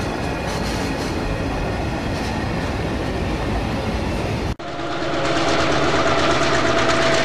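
Model train rolling past close by on the next track, its wheels clicking steadily over the rails. About halfway through the sound breaks off for an instant and comes back louder, with a steady whine, as the model diesel locomotive passes.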